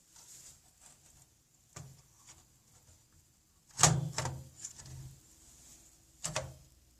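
Several separate knocks and clunks of hardware being handled, the loudest about four seconds in, followed by a few smaller ones and another near the end.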